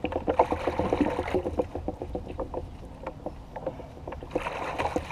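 Small fishing boat on the water: irregular light knocks and clicks on the hull with water lapping, and two short rushes of noise, one about half a second in and one near the end.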